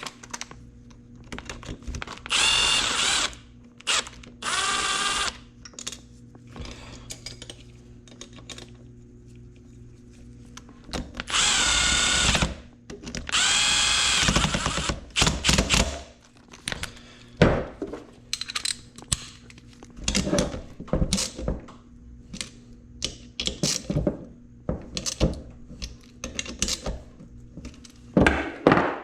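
Cordless power drill/driver running in four short bursts, about a second each, driving in bolts on a dirt-bike engine case, its whine bending in pitch as each bolt tightens. Scattered light clicks and knocks of parts and tools being handled follow.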